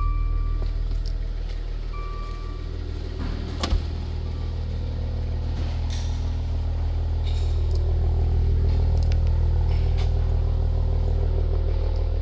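2014 Maserati Quattroporte's 3.0-litre twin-turbo petrol V6 idling steadily. A short warning chime sounds at the start and again about two seconds in, and a single sharp knock comes about four seconds in.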